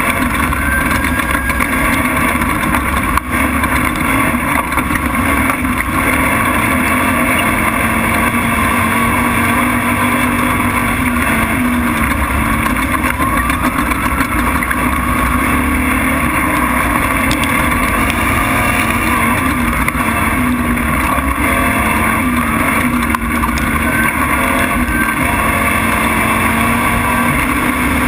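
Race truck's engine running hard and steady at speed on a dirt track, with wind and road noise, picked up by a camera mounted on the hood. A single sharp knock about three seconds in.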